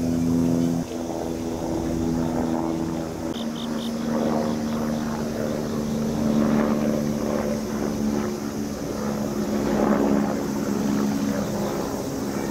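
Steady engine drone made of several low hum tones that shift slightly in pitch, with a short run of rapid high chirps about three seconds in.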